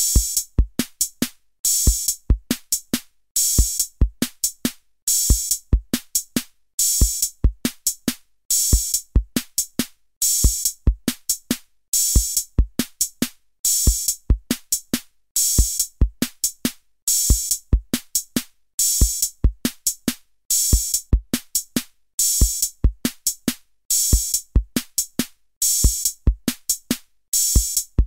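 Background music: a looping electronic drum beat with deep kicks and sharp high hits, the same pattern repeating about every second and three-quarters.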